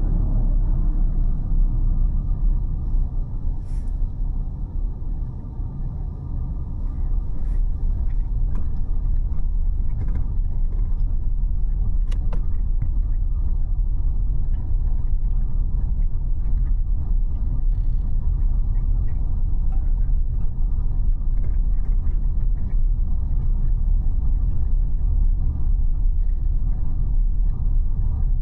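Car driving on city roads: a steady low rumble of road and engine noise that eases for a moment about five seconds in, with a few faint clicks.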